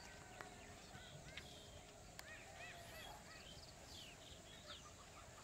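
Faint outdoor birdsong: several birds chirping with short, quick, arched notes, with a few sharp clicks in the first half.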